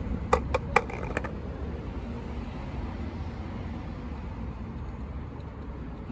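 About half a dozen quick, sharp clicks in the first second or so, then a steady low hum of outdoor background with distant traffic.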